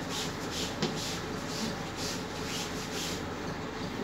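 Chalk scratching across a blackboard while words are written, in short strokes about two or three a second, with a light tap of the chalk just under a second in.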